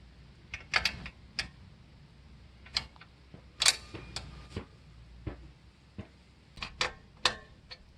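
Irregular metallic clicks and clinks of a wrench on a Yamaha Virago 250's chain adjuster nuts as the lock nut and adjusting nut are loosened, some with a short metallic ring.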